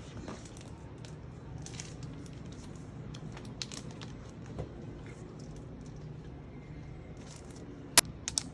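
Packaging being handled during an unboxing: scattered light rustles and soft taps over a steady low hum, then a sharp click near the end, followed by two quieter clicks.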